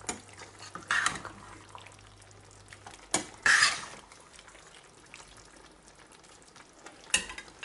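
A pot lid and utensils clink and scrape against a cooking pot of stew, in about four short clatters. The loudest is a longer scrape a little past the middle, and there is a faint kitchen background under them.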